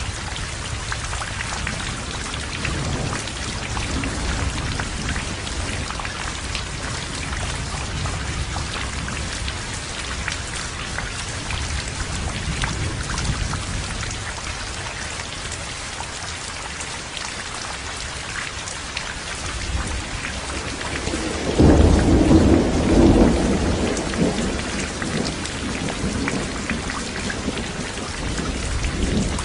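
Heavy rain falling steadily, with low rolling thunder underneath. About two-thirds of the way through, a louder peal of thunder breaks out and rumbles away over a few seconds.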